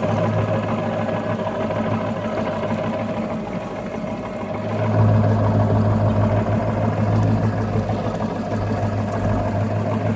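Ford F-250 pickup's engine running steadily while driving through deep flood water, growing louder about halfway through.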